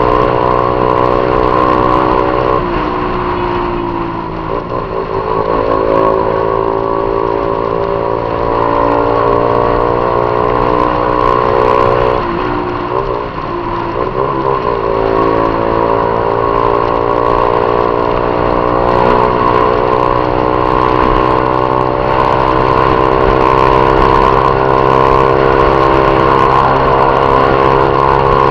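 Honda CG 150 Titan's single-cylinder four-stroke engine running through a Viúva Negra aftermarket exhaust while riding. The engine note drops and climbs back twice, around three seconds in and again around twelve to fifteen seconds in.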